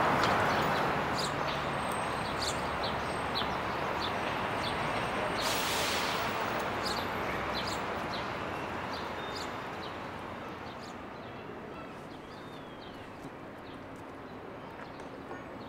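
Outdoor city-park ambience: small birds chirping in short, repeated calls over a steady hum of distant traffic, with a brief rush of noise about five and a half seconds in. The whole gradually gets quieter.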